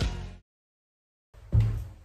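Background music ending abruptly, a moment of dead silence, then a single heavy thump about a second and a half in.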